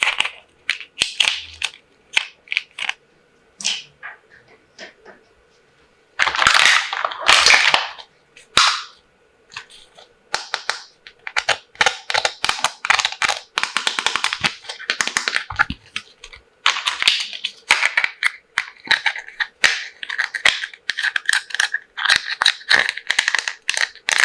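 Plastic toys and their packaging being handled: a long run of sharp clicks and taps, with a louder rustling for about two seconds around six seconds in.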